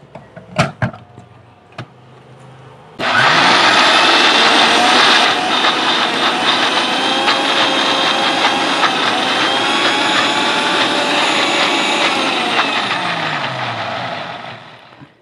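Sujata Multimix 900-watt mixer grinder grinding coconut with water in its coconut-milk filter jar. A few clicks as the jar is set on the base, then the motor starts abruptly about three seconds in and runs loud and steady with a whine, switched up through its speeds; near the end it is switched straight off and spins down with a falling pitch.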